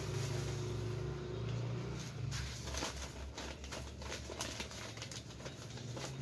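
Plastic bag crinkling and rustling as it is handled, a run of short irregular crackles from about two seconds in. A low steady hum underlies the first two seconds.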